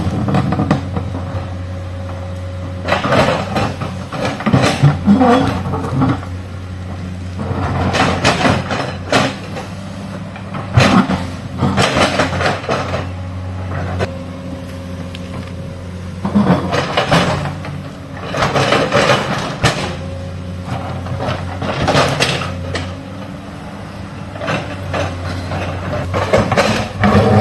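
Excavator's diesel engine running steadily under load, with repeated bursts of scraping and clattering, one every few seconds, as the bucket digs into soil and rock.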